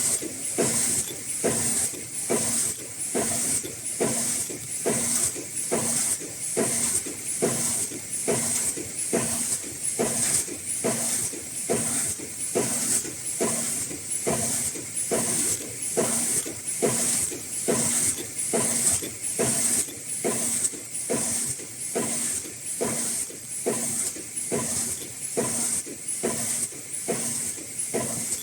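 High-speed N95/FFP2 mask production line with inline packing machine running, with a fast, even rhythm of clacks and a hiss that pulses with each cycle.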